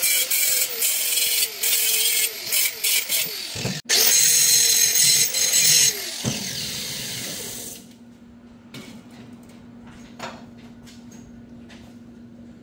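Electric angle grinder grinding a steel bolt in a vise, its motor pitch dipping each time the disc bites into the metal and recovering as it eases off, to clean and flatten the bolt for welding. About six seconds in the grinder is lifted off and winds down, stopping by about eight seconds, leaving a low steady hum and a few light clicks.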